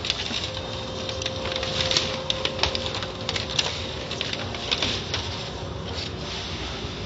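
Automatic car wash running: the hanging cloth-strip curtain slaps and swishes over a car, making many irregular clicks and spatters over a steady machinery hum.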